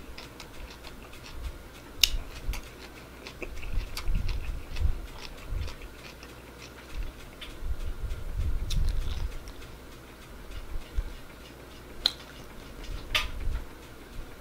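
A person chewing food with the mouth close to the microphone: soft, low chewing sounds in spells, with a few sharp clicks.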